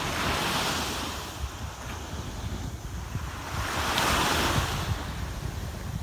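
Small sea waves breaking and washing up a sandy shore, the surf hiss swelling twice, once at the start and again about four seconds in. Wind buffets the microphone underneath.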